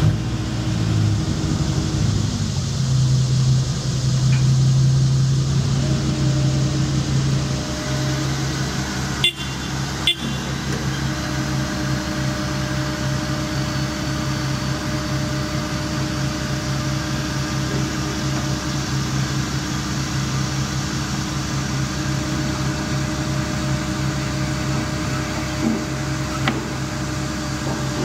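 CAT 305.5E mini excavator's diesel engine running steadily, working harder for the first few seconds. Two sharp knocks come about nine and ten seconds in, and a steady higher whine joins just after.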